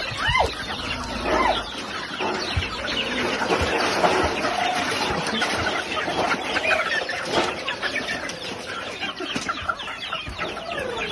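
A flock of native chickens clucking and calling, many birds at once with short calls overlapping continuously.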